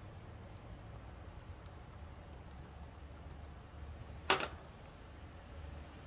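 Faint scattered clicks of a pick working the pins of a Van Lock push-key padlock, then one sharp, louder metal clack a little past four seconds in.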